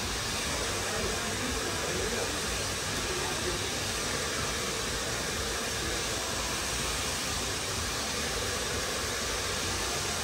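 Handheld hair dryer blowing steadily while a stylist dries long hair: an even, unbroken rush of air.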